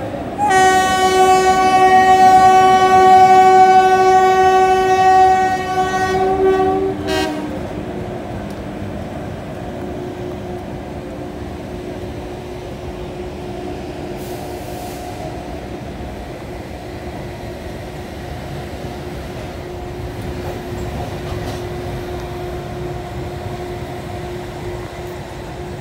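Long blast of a WAP-7 electric locomotive's horn, held on one pitch for about seven seconds and cut off sharply. After it comes the steady running noise of the passenger train rolling along the track.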